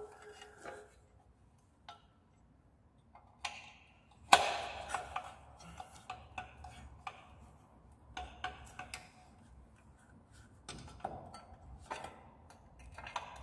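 Metal clinks, taps and knocks of a scooter's kickstarter ratchet mechanism being fitted into its cover by hand. There is one sharp knock about four seconds in, followed by scattered light clicks.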